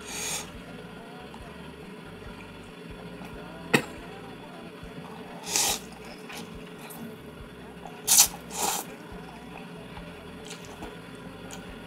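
Instant noodles being slurped: four short slurps, two of them back to back near the end, with a single sharp click a little under four seconds in.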